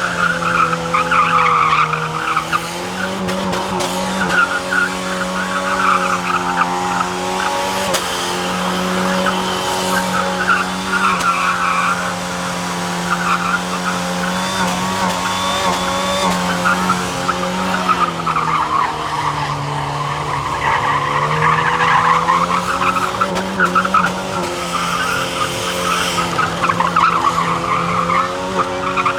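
Car doing a burnout: the engine is held at high, steady revs while the spinning tyres squeal. The revs sag briefly a couple of seconds in and again about two-thirds of the way through, then climb back.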